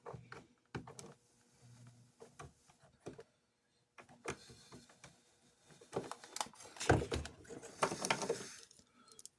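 Light clicks, taps and clatter of small metal train parts and tools being handled, with a busier stretch of rattling about six seconds in.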